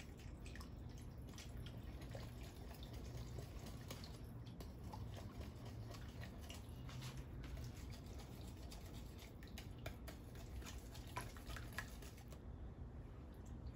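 Wire whisk stirring a thick, creamy enchilada sauce in a ceramic bowl: faint wet stirring with scattered light ticks of the wires against the bowl.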